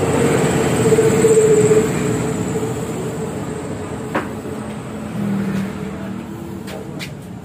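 Passing road traffic, small motorcycle engines going by, loudest about a second in and then fading. One sharp tap comes about four seconds in.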